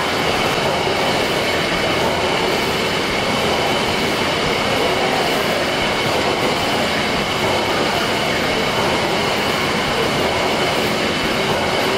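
The Victoria and Alexandra twin tandem compound steam mill engine running steadily, its moving parts giving a continuous even mechanical noise.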